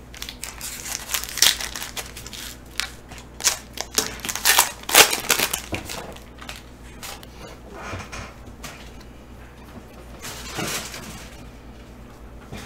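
Foil trading-card pack being torn open and crinkled by hand, in crackling bursts over the first six seconds, with another burst of handling about ten seconds in as the cards are slid out and sorted.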